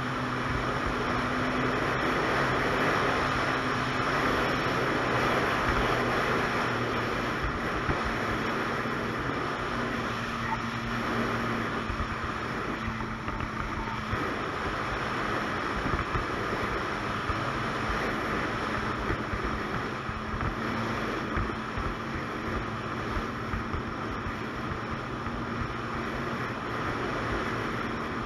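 Ski-Doo Expedition 900 ACE snowmobile's Rotax three-cylinder four-stroke engine running at a steady cruise, with wind buffeting the microphone.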